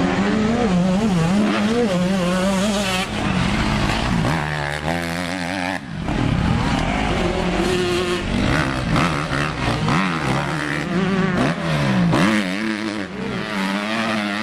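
Motocross bike engines revving, the pitch rising and falling again and again as the throttle opens and closes, with a brief drop about six seconds in.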